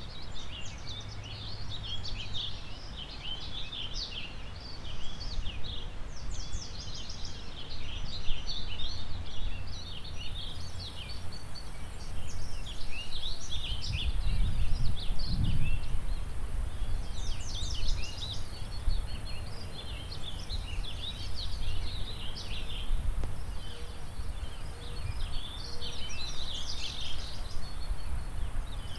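Several songbirds chirping and trilling in a dense, overlapping chorus over a steady background of river water and wind. A stronger low rumble of wind comes through about halfway.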